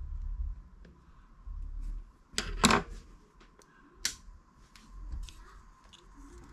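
Small plastic clicks and knocks from handling the opened Ben 10 basic Omnitrix toy, the loudest a sharp clack about two and a half seconds in, over low rumbling handling noise.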